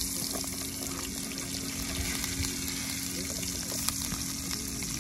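Sliced onions sizzling in hot oil with whole spices in a steel pot: a steady frying hiss, with a few faint ticks of the stirring spoon.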